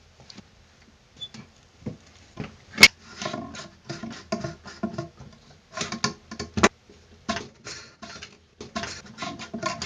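Long screwdriver scraping and clicking in the stripped slot of a bathtub drain's retaining bolt, metal on metal, as the bolt is forced round and starts to unscrew. One sharp metallic click a little under three seconds in is the loudest sound.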